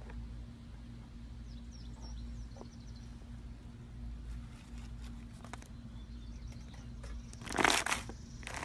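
Faint low hum with a few small clicks, then, near the end, a loud crackling crunch as slime is squeezed.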